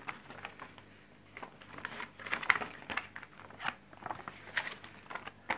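Paper rustling and crinkling as a creased, folded poster is handled and folded up by hand, with irregular soft crackles.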